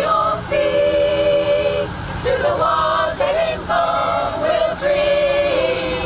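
A group of women carol singers singing together in harmony, holding each chord for about a second before moving to the next.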